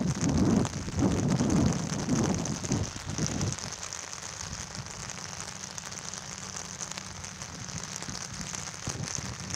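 Wind gusting against the microphone for about the first three and a half seconds, then a steady hiss of light rain.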